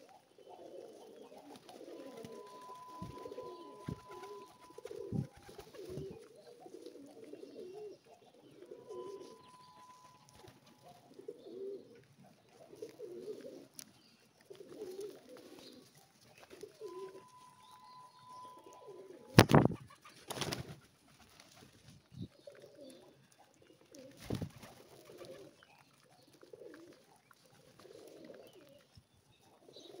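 A flock of domestic rock pigeons cooing, low rolling coos repeating about once a second. A few sudden loud knocks close to the microphone come around two-thirds of the way through.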